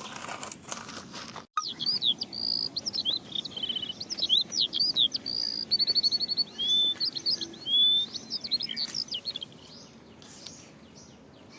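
A songbird singing a fast, varied song of whistled notes, rapid trills and slurred chirps, starting suddenly about a second and a half in after a short stretch of noise, and stopping a couple of seconds before the end.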